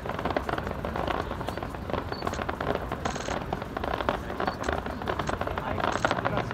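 Fireworks going off in a rapid barrage, a dense crackle of many bangs and small bursts packed close together without a break.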